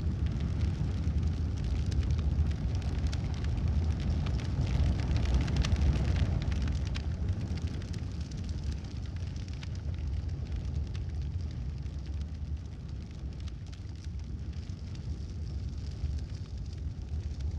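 Large fire burning: a deep, steady rumble of flames with sharp crackles and pops throughout. The crackling is thickest in the first six or seven seconds, then the fire eases a little and grows somewhat quieter.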